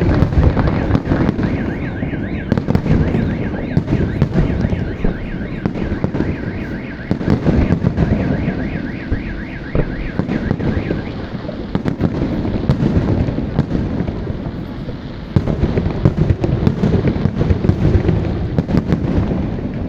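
Fireworks going off: dense, irregular bangs and crackling of salute shells. A warbling car alarm, set off by the blasts, wails over them from about two seconds in until about halfway through.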